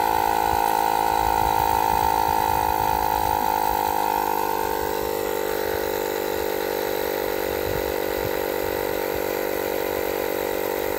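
Avid Power 20V cordless tire inflator running steadily as it pumps air into a bike tire. About five seconds in, its tone shifts and it gets slightly quieter.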